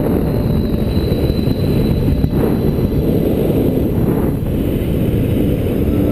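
Airflow buffeting the camera microphone during a paraglider flight: a loud, steady low rumble of rushing wind.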